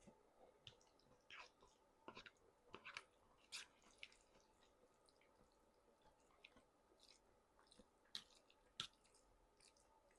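Quiet, close-up chewing with wet mouth smacks and clicks in irregular bursts, busiest in the first four seconds, with two sharper smacks near the end.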